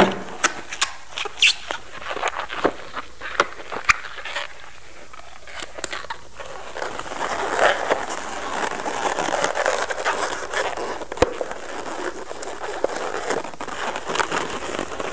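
Latex modelling balloons squeaking and crackling as they are twisted and squeezed by hand. There is a run of sharp separate squeaks for about the first six seconds, then denser, steadier rubbing.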